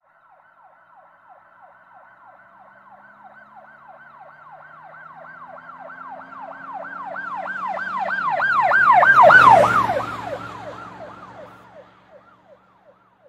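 Emergency vehicle siren on a fast yelp, quick rising-and-falling wails about three a second. It passes by, growing louder to its loudest about nine and a half seconds in, then fading away.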